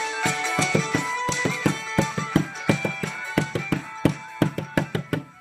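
Bodhrán beaten with a wooden tipper in a steady rhythm, about four strokes a second, over a song with pitched instruments that fades out near the end.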